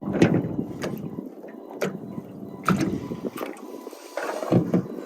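Irregular knocks and splashy water sounds in a small fishing boat, about one knock a second.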